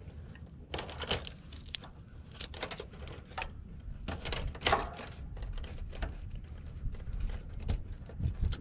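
Irregular clicking and rustling of insulated wires being pulled and worked through a zip-tied bundle inside a heat pump's sheet-metal control box.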